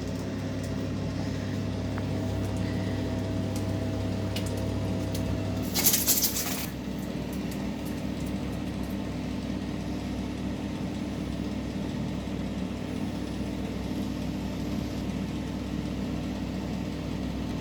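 Steady low machine hum made of several held tones; part of it stops about six seconds in, just as a brief hissing noise sounds for under a second.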